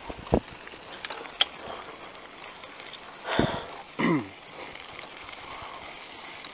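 Bicycle riding along a dirt road: steady rolling and wind noise with a few sharp clicks and knocks early on, and two short sounds falling in pitch a little past the middle.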